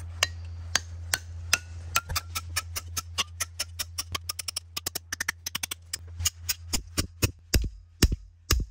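Piton hammer striking a steel Chouinard angle piton seated in a drilled hole in rock, pounding it to loosen it for removal. The sharp ringing strikes come about two a second at first, speed up to four or five a second, then slow to heavier blows near the end.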